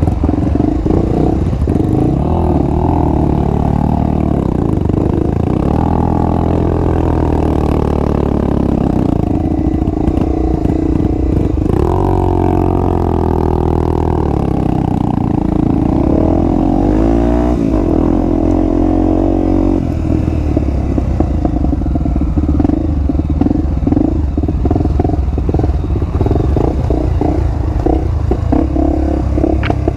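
Honda XR250 Tornado's single-cylinder four-stroke engine being ridden on a dirt trail, its pitch rising and falling with the throttle, through a new aftermarket exhaust.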